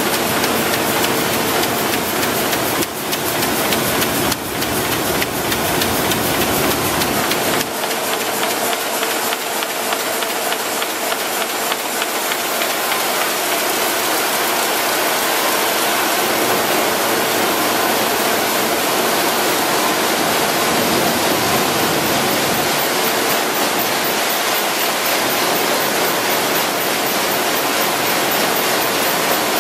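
RYOBI 758P eight-colour sheetfed offset press running: a loud, steady rush of machine noise that does not change. A faint hum fades out about eight seconds in, and there are a few soft knocks before then.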